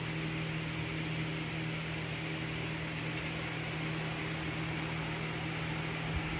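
Steady background hiss with a low electrical hum underneath, with a soft low bump near the end.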